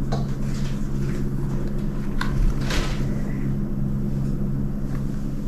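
Steady low background hum, with a few soft handling sounds of play-doh being pressed and shaped, about two and three seconds in.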